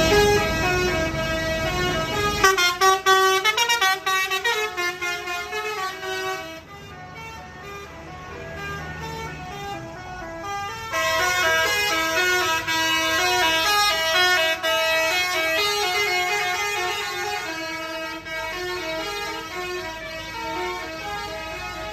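Indonesian bus telolet horns, multi-tone musical air horns, playing stepped melodies over and across each other. They drop back a third of the way in and come back loud about halfway through.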